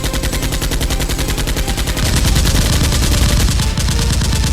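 Rapid automatic gunfire: a fast, steady rattle of shots, about a dozen a second, getting louder about two seconds in.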